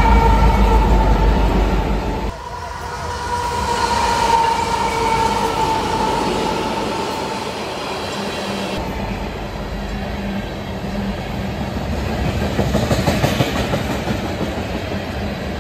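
A freight train's horn sounds while its diesel locomotives pass close by, with a heavy low engine rumble that drops away about two seconds in; the horn fades out a few seconds later. Loaded ethanol tank cars then roll past with steady wheel clatter on the rails.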